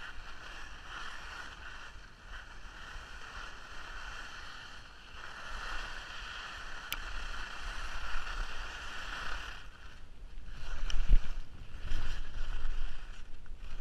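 Skis sliding on snow, with wind rumbling on the action camera's microphone. The rumble grows louder about ten seconds in as the skier picks up speed, and there is a single knock shortly after.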